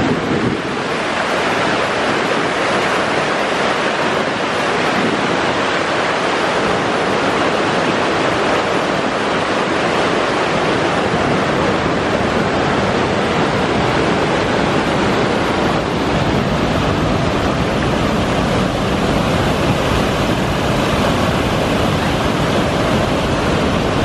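Loud, steady rushing of a river's whitewater rapids and falls pouring over rock ledges.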